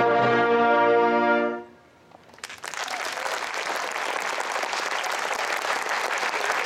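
Concert band and French horn soloist holding a final chord, cut off about a second and a half in. After a short pause the audience starts applauding and keeps on.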